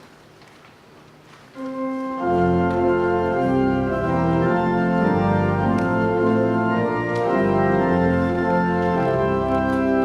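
Church organ starts playing about a second and a half in, with loud sustained chords over a moving bass line; before that, only faint room tone.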